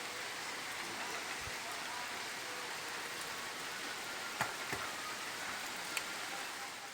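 Steady rain falling, with a few sharper drop taps in the second half.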